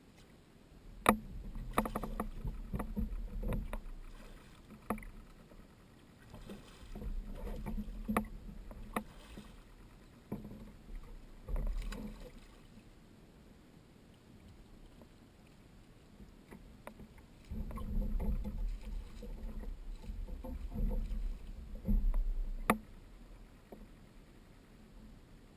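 A kayak on the water: several bouts of low rumbling water and hull noise with sharp clicks and knocks, separated by quieter gaps.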